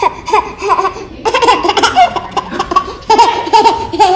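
A baby laughing hard: runs of rapid, high giggles, each note falling in pitch, broken by two short pauses for breath.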